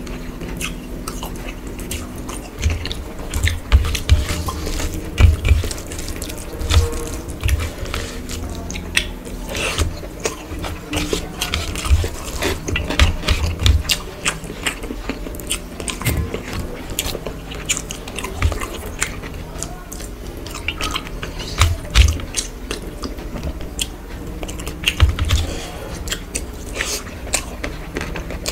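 Close-miked chewing and mouth smacking of rice and curry eaten by hand, with wet squishes and clicks of fingers mixing rice on a steel plate, in irregular quick bursts.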